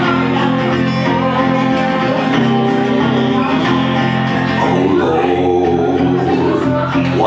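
Acoustic guitar played steadily, with a man singing over it into a microphone.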